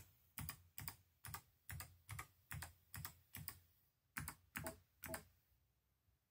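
Keydous NJ80-AP mechanical keyboard with Kailh BOX White switches, keys pressed one at a time in a slow, even rhythm of about two and a half strokes a second. After a brief pause come three more keystrokes, then the typing stops about a second before the end.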